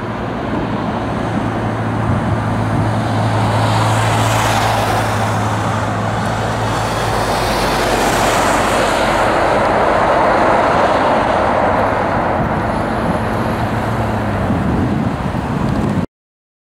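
Jet engines of a Boeing 757-224 running loud as the airliner rolls out along the runway after touchdown, a continuous rushing noise over a steady low hum that swells a little after the start. The sound cuts off suddenly near the end.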